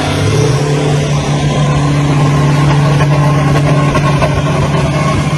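Pickup truck engines held at high revs under heavy load while one pickup tows another out of soft sand, wheels spinning. A loud, steady drone that holds one pitch throughout.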